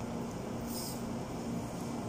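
Steady background hum and hiss, with one short crisp sound about three-quarters of a second in.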